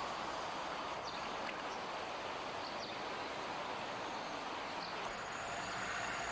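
Steady background hiss of outdoor ambience, with a few faint short chirps high up and a thin high whine coming in near the end.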